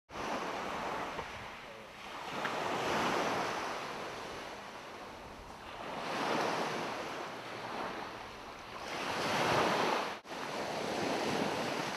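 Small waves washing onto a beach, the surf swelling and fading about every three seconds, with a brief break about ten seconds in.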